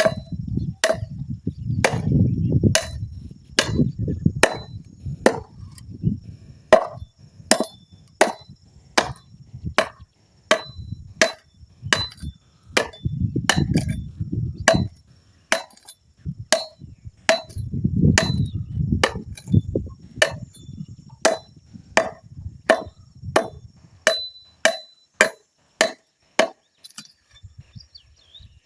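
Wood being chopped by hand with a blade: steady sharp strokes about one and a half a second, which stop near the end.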